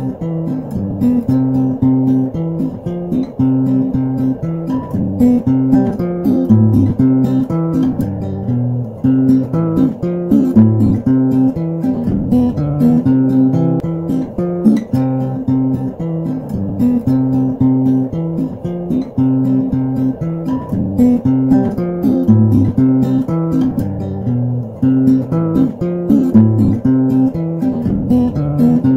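Background music: steady guitar playing with plucked and strummed notes over a bass line.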